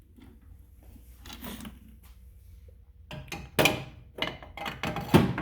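Metal tools clanking and rattling in a toolbox drawer as a striking pry bar is put back among them: a few faint rustles, then a quick series of sharp knocks starting about three seconds in.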